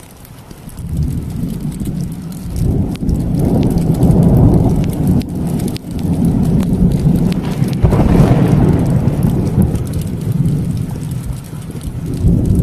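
A long rolling rumble of thunder that builds about a second in and keeps swelling and fading, loudest around four and eight seconds in, with rain falling.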